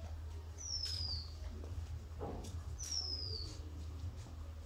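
A high, thin whistled call sliding down in pitch, repeated about every two seconds, over a steady low hum with a few light clicks.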